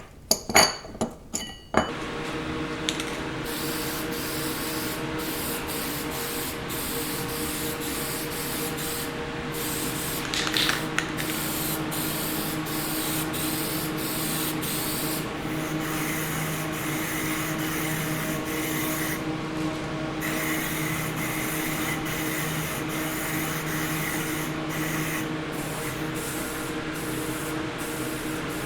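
A few metal parts clink together at the start, then paint is sprayed: a steady spray hiss over a low motor hum, with many short breaks in the hiss.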